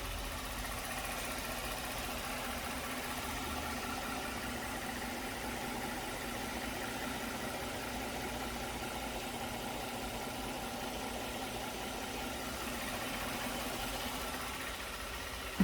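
Genesis EQ900 engine idling steadily, with a sharp knock right at the end.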